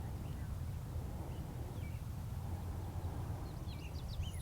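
Outdoor ambience: small birds chirping faintly now and then, more often near the end, over a steady low rumble.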